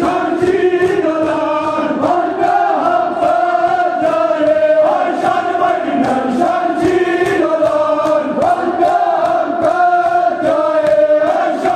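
A group of men chanting a Kashmiri marsiya, a Shia lament for Imam Hussain, in unison, with held, wavering sung lines, over a faint regular beat of sharp hits.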